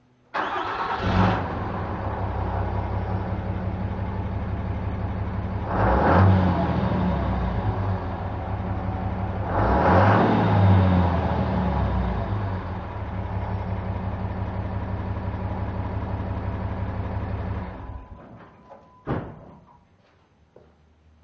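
2007 Dodge Ram's 6.7 L Cummins inline-six turbodiesel on its stock exhaust, starting up abruptly and idling. It is revved three times, and shut off about 18 seconds in. A single knock follows about a second later.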